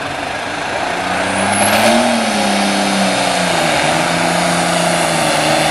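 Diesel farm stock pulling tractor under full load dragging a weight-transfer sled. The engine winds up to about two seconds in, then holds with a slight sag as the sled bears down. A high whistle rises briefly about a second in.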